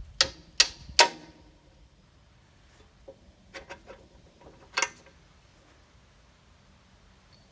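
Sharp metallic clanks of steel bucket pins being knocked out of a mini excavator's bucket linkage: three loud ringing strikes in quick succession at the start, then a few light clicks and one more clank near the middle.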